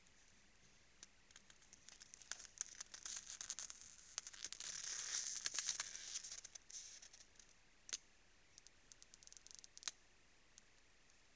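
Moose at a salt lick in frozen snow: faint, irregular crackling and crunching, busiest about four to six seconds in, with a couple of sharp clicks later.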